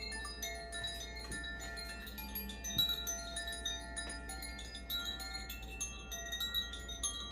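Tuned metal chimes (Makino-style Advance Chimes) played in a concert, struck rapidly and many times so that their clear ringing tones overlap and die away.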